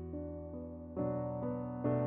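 Background piano music: slow, sustained chords, with new chords struck about a second in and again near the end.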